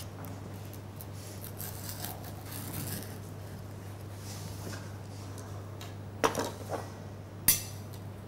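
A knife cutting through a baked sponge cake, with soft scraping and rustling as the blade works through the crumb. Near the end come a few short knocks and one sharp click. A low steady hum runs underneath.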